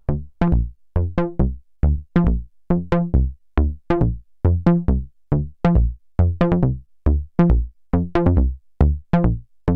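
Moog Rogue two-oscillator analogue monosynth playing a sequenced pattern of short, plucky sawtooth notes, about two to three a second, stepping between pitches. Each note starts bright and quickly darkens as the filter envelope closes.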